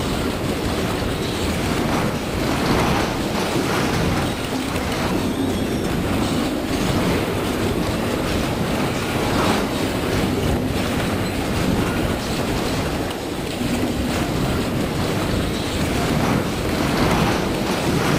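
A five-story reinforced-concrete building shaken on a shake table through a motion stronger than a maximum credible earthquake: loud, continuous rumbling with dense clattering and knocking from the frame, cladding, hanging equipment and loose furnishings.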